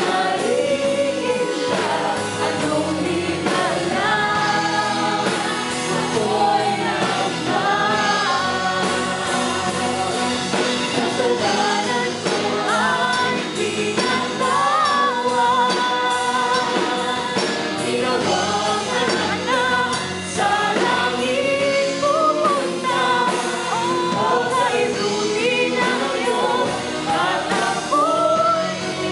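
Live worship band playing a Tagalog praise song: women and a man singing the melody into microphones over drums, electric guitar and keyboard.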